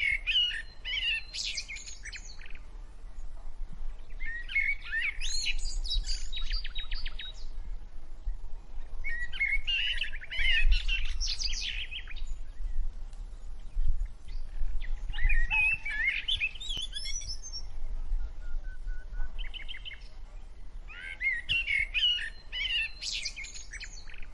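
A songbird singing a chirping, warbling phrase of about two seconds, repeated five times at intervals of four to five seconds, over a steady low hum.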